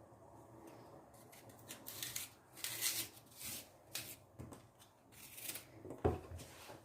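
Knife cutting out the core of a small apple: a run of short, irregular crisp cuts and scrapes, with a sharper knock about six seconds in.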